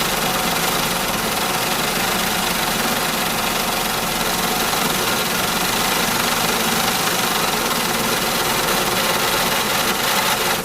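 Loud factory machinery running steadily: an even, dense mechanical din with a few constant hum tones.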